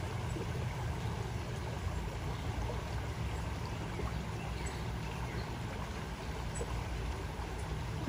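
Shallow stream flowing steadily over stones.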